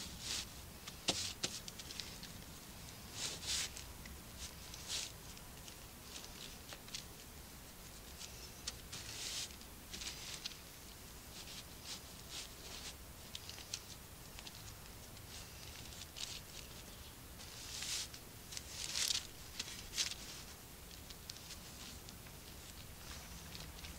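A metal spoon and a knife scraping and dragging over floured baking paper as they fold a soft bread dough: irregular short scratchy strokes with a few light clicks, busiest about a second in and again near 18 to 20 seconds.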